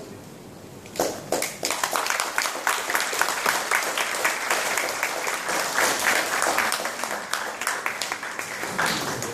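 Audience applauding, breaking out about a second in after a quiet moment and continuing as a dense clatter of clapping, thinning slightly near the end.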